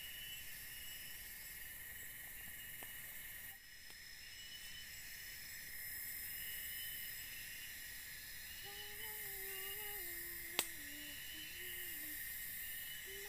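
Steady high chirring of forest insects with short chirps repeating over it. From about nine seconds in, a lower call wavers up and down in pitch, and a single sharp click sounds just after ten seconds.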